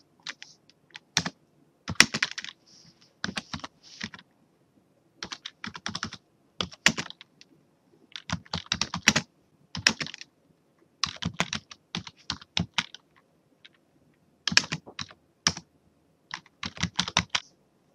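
Typing on a computer keyboard: irregular bursts of keystrokes separated by short pauses.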